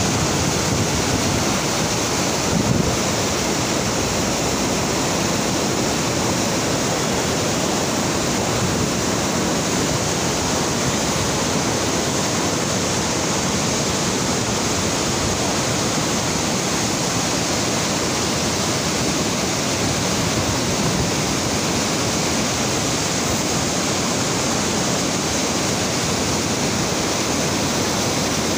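Swollen mountain river in spate after heavy rain, rushing through white-water rapids with a steady, loud roar.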